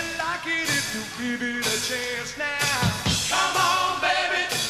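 A live rock band playing, with a voice singing over electric guitar and drums.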